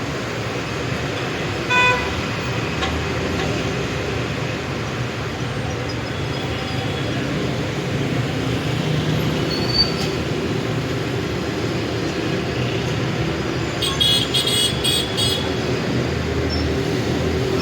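City street traffic: the steady noise of passing cars and engines, with a short car-horn toot about two seconds in and a quick run of short high-pitched beeps near the end.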